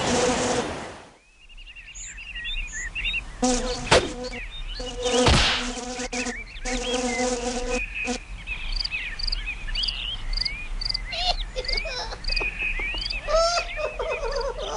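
Insect-like buzzing in short stretches, mixed with many short, high, twittering chirps and a run of regular high peeps about twice a second. Two sharp clicks come in the first half.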